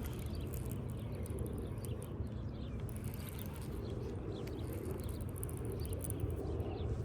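Outdoor ambience: a steady low rumble of wind on the microphone, with faint high chirps and scattered light ticks.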